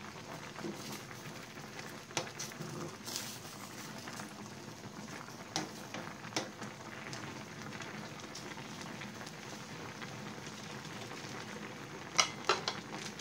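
Pan of fish-head and shrimp sinigang broth boiling hard, a steady bubbling, with a few light knocks as a wooden spatula stirs in the stainless pan and a cluster of sharper clicks near the end.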